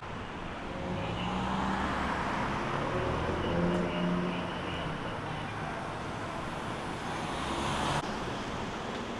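Road traffic: a vehicle's engine and tyres swell as it passes, loudest about three to four seconds in, over a steady background of traffic noise. The sound changes abruptly about eight seconds in.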